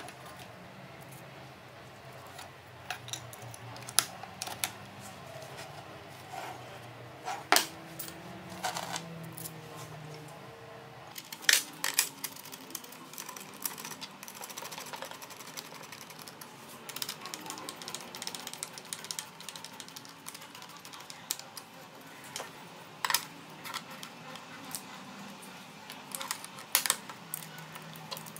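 Walnut slats of a folding shelf frame being handled and folded on their metal pivot screws: scattered, irregular sharp clicks and light knocks of wood and hardware.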